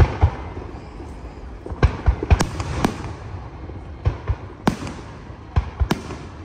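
Aerial firework shells bursting overhead in a display: about a dozen sharp bangs at uneven intervals, some in quick pairs, each with a short echoing tail.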